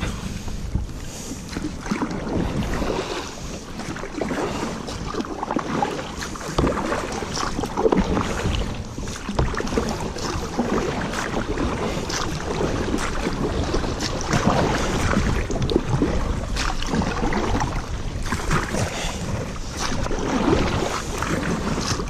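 Canoe being paddled on a shallow river: irregular paddle splashes and water sounds, with wind rumbling on the microphone.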